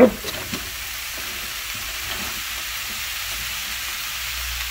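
Sliced caraili (bitter melon) and onion frying in a pot: a steady, even sizzle.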